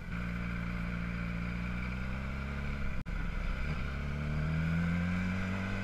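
Motorcycle engine running steadily, then pulling away: the engine note rises as it accelerates and levels off. The sound breaks off for an instant about three seconds in.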